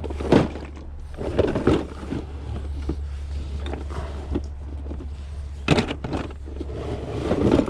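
Irregular clatter and knocks of rummaging through parts, with louder knocks about a third of a second in and just before six seconds, over a steady low hum.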